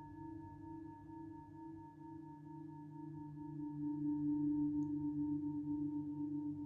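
Singing bowl ringing with a sustained, wavering pulse in its tone, swelling louder about four seconds in.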